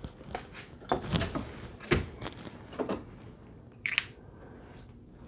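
A handful of light metal knocks and clicks from handling a reloading press and a loaded 350 Legend cartridge. Just before the end comes a sharper, higher metallic click as the round is dropped into a cartridge case gauge to check its fit.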